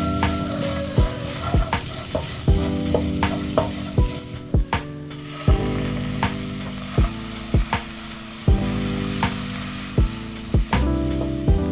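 Wooden spatula stir-frying shredded carrots in a non-stick wok, clacking against the pan every half-second to a second, over a steady sizzle of frying.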